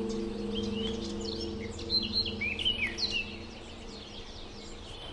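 A bird calling: a quick run of short, high chirps, loudest between two and three seconds in. Under it runs a low steady hum that fades out.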